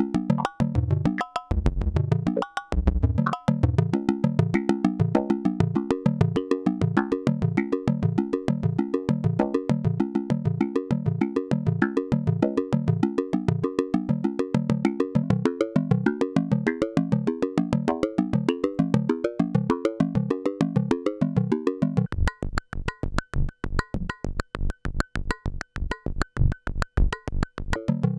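Buchla modular synthesizer playing a fast, shifting rhythmic pattern of short pitched notes, fired by a chain of pulse-train triggers. About 22 seconds in, the pattern thins to an even pulse of low notes.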